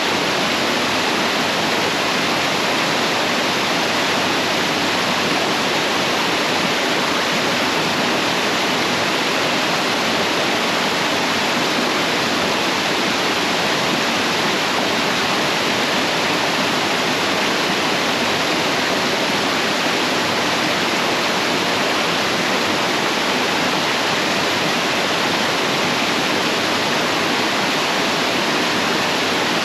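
Huskey Branch Falls, a waterfall on a mountain stream, pouring steadily: an even, unbroken rush of falling water.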